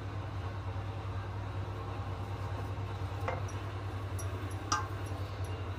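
A steady low hum, with two light clinks of kitchenware about three and five seconds in, the second the sharper.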